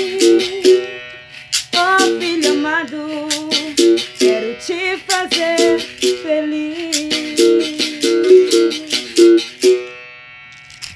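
Berimbau played solo: rhythmic stick strikes on its steel wire, shifting between notes, ending about ten seconds in with a short ring-out.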